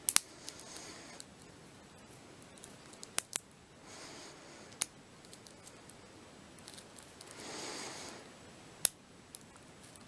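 Single-pin picking of a small brass Yale Y121 padlock: a hook pick and tension wrench working the pins in the keyway give several sharp metallic clicks and short scratchy scraping passages.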